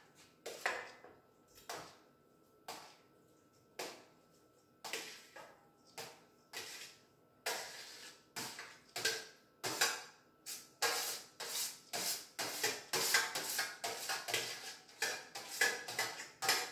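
A spoon scraping and knocking grated courgette out of a shallow dish into a mixing bowl: short scrapes and taps, spaced apart at first, then quicker, about two a second, from about halfway.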